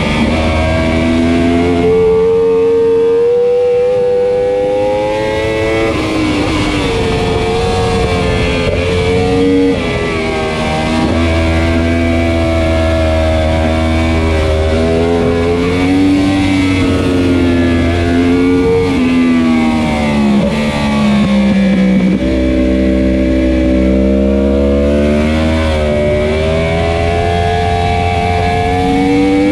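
2015 Yamaha R1's crossplane inline-four engine at racing revs, its pitch repeatedly climbing under acceleration and dropping on gear changes and braking as the bike laps the track.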